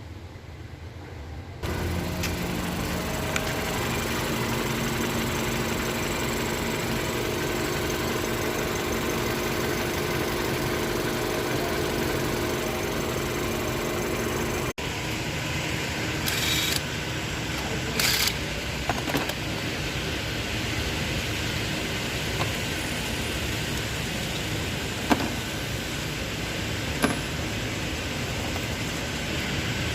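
Toyota Camry engine running steadily at idle, in a car being diagnosed for a misfire. The sound comes in abruptly about two seconds in, breaks off for a moment about halfway, and a few short hisses and clicks come through in the second half.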